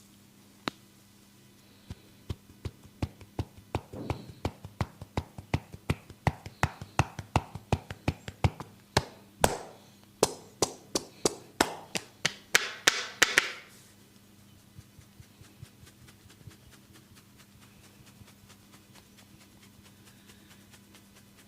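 Rhythmic head-massage percussion: hands tapping and chopping on the head, about three strikes a second, growing louder and closing in a quick flurry before stopping. A few faint clicks follow.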